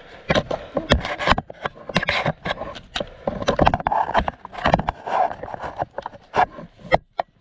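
Irregular sharp knocks, clicks and scraping of an airsoft rifle and gear against a wooden pallet barricade as it is handled at cover.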